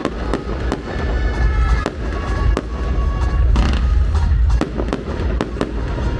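Fireworks display: a rapid series of sharp bangs from bursting shells over a continuous deep booming rumble, with music playing underneath.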